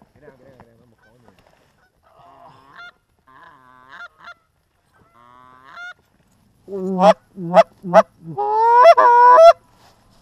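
Goose honks. Faint, scattered honks come in the first few seconds. Then a run of loud, close honks and clucks fills the last three seconds.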